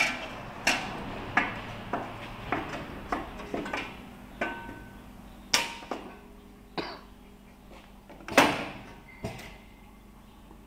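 Sharp metallic clacks and knocks from a straight seam welding machine being handled and set up, some ringing briefly: roughly one every half second for the first four seconds, then a few scattered ones, the loudest about eight seconds in. A low steady hum runs underneath.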